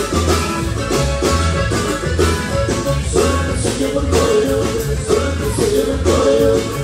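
Norteño band playing live: a button accordion carries the melody over strummed guitar and a regular pulsing bass line, heard through the venue's sound system.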